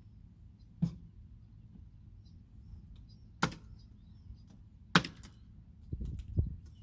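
Three sharp single chops of a blade cutting through chicken onto a hard surface, spaced a couple of seconds apart; a low rumbling noise starts near the end.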